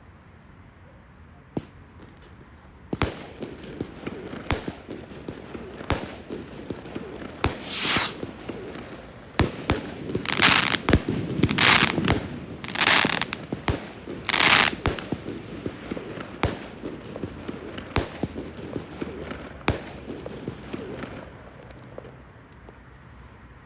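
Fireworks going off: a run of sharp bangs about one to two seconds apart, coming thick and fast in the middle with several longer hissing bursts, then thinning out near the end.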